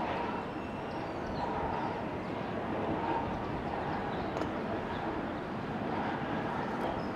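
Steady outdoor background noise with a fluctuating low rumble, with no single sound standing out.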